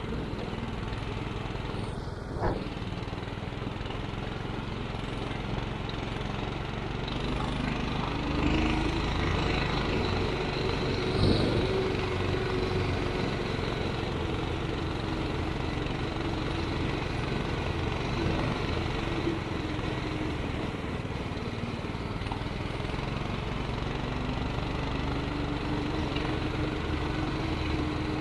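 Small engine of a motorized towing sled (motor dog) running steadily under load, its pitch rising and falling a little with the throttle. A sharp knock about two seconds in and a louder thump near the middle.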